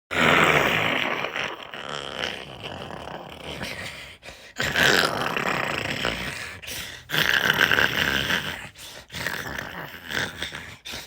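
A dog growling and grumbling in rough, drawn-out bouts: three loud ones, at the start, about four and a half seconds in and about seven seconds in, each trailing off, with softer grumbles between.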